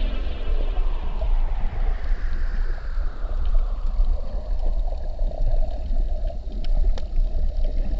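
Underwater sound of a distant motorboat engine heard through the water: a whine that falls in pitch over the first few seconds, then holds steady. Under it runs a constant low rumble of water moving over the camera.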